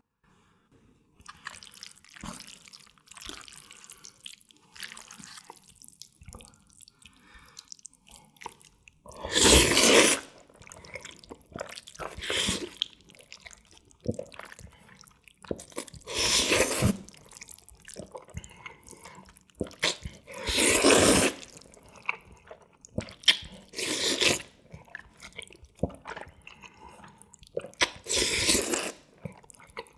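Jjajangmyeon noodles in black bean sauce slurped up from the container with chopsticks: about six loud, wet slurps several seconds apart, starting about nine seconds in. Softer clicks and wet rustles fill the gaps between them.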